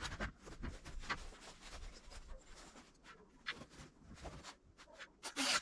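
Faint, irregular clicks, scrapes and rustles of handling, with a slightly louder scrape near the end; the chainsaw is not running.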